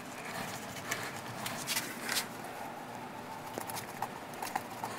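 Knife cutting down along the backbone of a smoked suckling pig, its crispy skin giving irregular crackling crunches.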